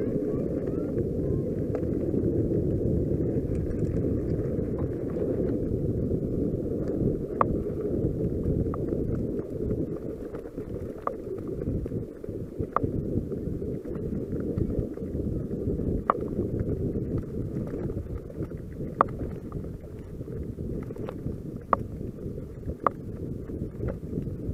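Mountain bike ridden over gravel and then grass, with a steady low rumble of tyres and wind buffeting the ride camera's microphone, and sharp clicks and knocks from the bike rattling over bumps every second or two.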